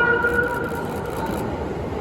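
JR East 255 series electric train rolling slowly along the platform, mostly a low, even rumble. A steady whine carried over from before fades out about half a second in.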